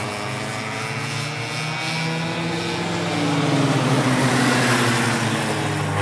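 Go-kart engines buzzing on a track, their pitch slowly rising and falling as the karts pass; the sound grows a little louder about halfway through.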